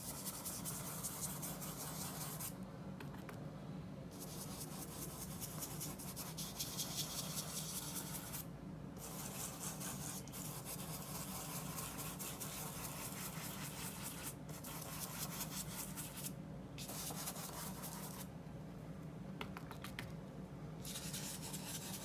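Fan brush bristles scratching and rubbing across gesso-coated paper as white oil paint is worked in for clouds, in runs of strokes broken by a few short pauses.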